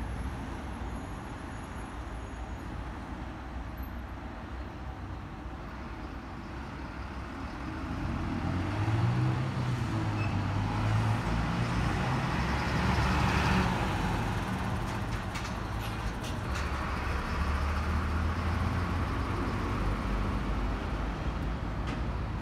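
Low rumble of road traffic, with a motor vehicle's engine growing louder about eight seconds in and staying close for most of the rest.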